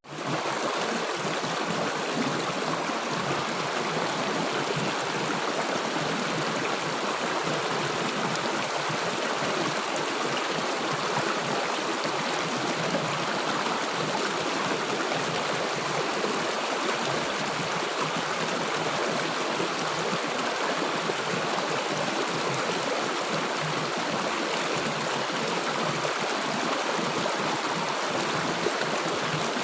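River water flowing and gurgling in a steady, unbroken rush, with a momentary dropout right at the start.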